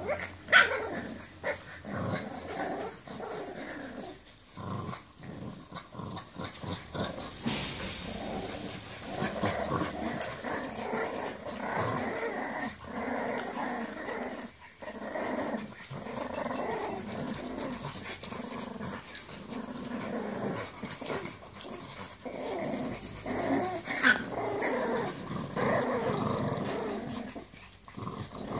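French bulldog puppies and an adult French bulldog growling in rough play, a near-continuous rough grumbling. Two short sharp high cries cut through it, one about half a second in and one near the end.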